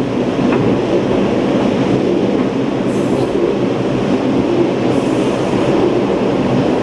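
Gateway Arch tram capsule running up inside the arch's leg: a steady rumbling hum of the car on its track, with two brief hisses about three and five seconds in.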